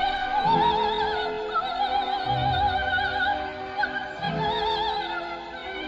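Operatic singing: a high voice holding long notes with wide vibrato over lower held accompaniment, as background music.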